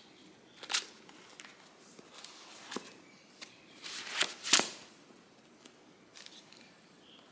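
A few short paper rustles and light taps from handling a book, such as pages being turned, the loudest pair about four seconds in.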